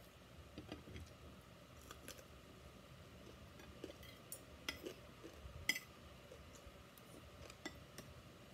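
Scattered light clicks and clinks of a fork and spoon against a china plate and a glass bowl, with chewing; the sharpest clink comes a little past the middle.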